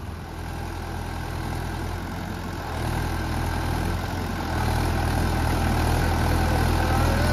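Swaraj 843 tractor's diesel engine running, its revs rising in two steps, about three seconds in and again a little past four seconds, as it works stuck in deep mud.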